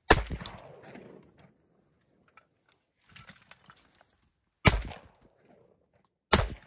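Three shotgun shots: one at the very start, then two more about a second and a half apart near the end. The first rings on for more than a second before dying away.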